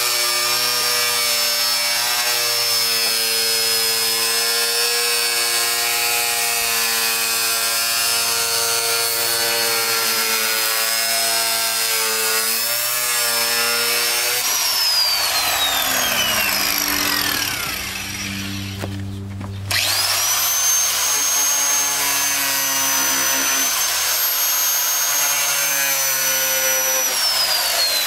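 A handheld corded rotary tool runs at high speed with a high, steady whine that wavers as it cuts into the plastic inner fender skirt. About halfway through it is switched off and its pitch falls as it coasts down. A few seconds later it spins back up to speed, and it winds down again near the end.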